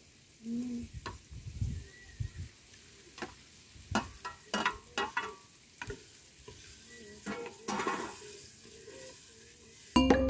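Chopped tomatoes scraped off a metal plate into a clay pot of onions and green pepper frying in oil, then stirred: irregular knocks and scrapes of the utensil against the pot over a faint sizzle. Music comes in at the very end.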